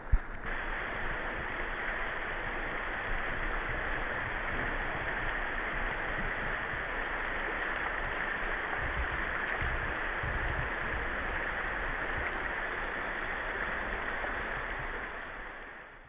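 Shallow stream running over stones: a steady rush of water close to the microphone. A single sharp knock right at the start, and the sound fades out near the end.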